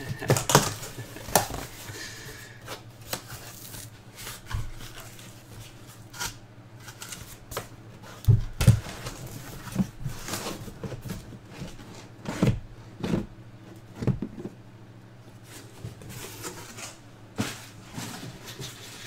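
A cardboard shipping case being opened by hand, its flaps pulled back, then the sealed card boxes inside handled and stacked: a string of irregular taps, knocks and thumps of cardboard on cardboard and the table.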